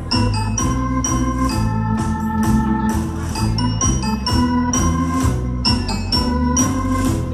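Electronic keyboard played live with an organ sound, playing tango dance music: held chords and melody over a bass line and a steady beat.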